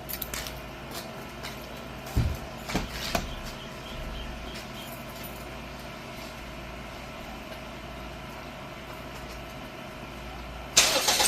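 A few light clicks and knocks, then near the end a vehicle engine is started and keeps running loudly.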